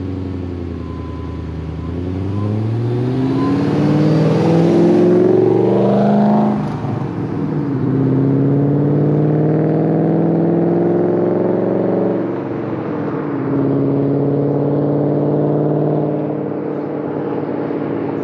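Supercharged V8 of a 2010 Shelby GT500, with long-tube headers and a 3-inch MBRP exhaust, accelerating hard in a drive-by. The engine note climbs to its loudest as the car passes about five seconds in, drops at an upshift about six seconds in, and drops again at another shift about twelve seconds in as the car pulls away.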